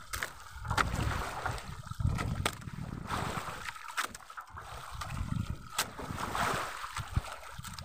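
Water sloshing and lapping against a small boat's hull, with wind gusting on the microphone. A few sharp clicks come through along the way.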